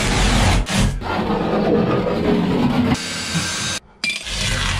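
Background music with drums. Under it, scraping and tearing as a foam-backed pleather lining is peeled off a boat cabin wall. The sound drops out briefly about four seconds in.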